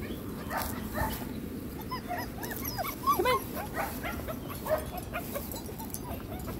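German shepherd puppies yipping and whining: a quick run of short, high, squeaky calls, loudest about three seconds in.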